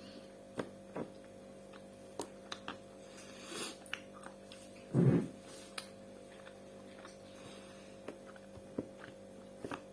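A steady low electrical hum, with faint scattered clicks and one brief, dull thump about five seconds in.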